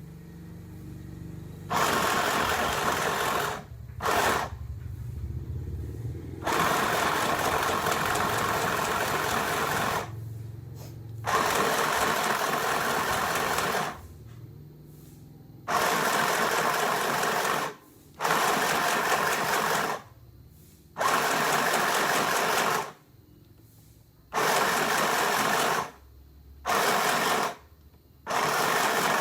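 Mini portable electric sewing machine running in short stretches of one to four seconds, starting and stopping again and again as it stitches.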